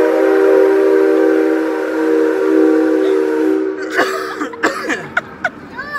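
Train whistle blowing a loud, steady chord of several tones, stopping about three and a half seconds in, followed by a few clicks and knocks.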